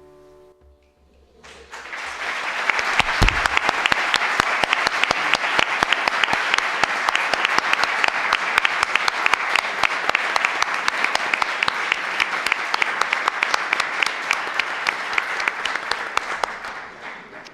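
Audience applauding: the clapping rises about a second and a half in, holds steady and dies away near the end. The last piano note fades out just before it.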